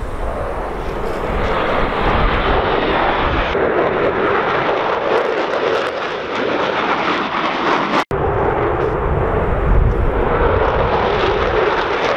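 Jet noise from a formation of F-16 Fighting Falcon fighters flying past, a steady loud rush, with a sudden momentary dropout about eight seconds in where the recording is cut.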